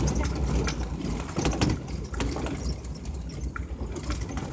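A vehicle driving slowly along a rough dirt track, heard from inside: a steady low rumble with irregular rattles and knocks as it goes over the bumps.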